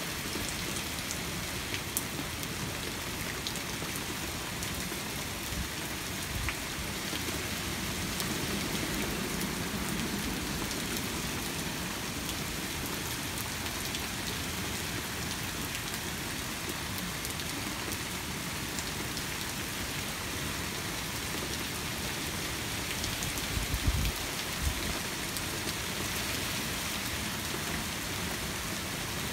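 Steady rain falling hard, a continuous hiss, with a low rumble swelling for a few seconds about a third of the way in and two dull low thumps near the end.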